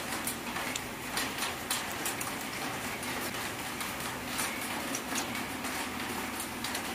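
Hot oil in an electric deep fryer sizzling with a steady hiss and many small crackles around a deep-fried pork hock as it is lifted out.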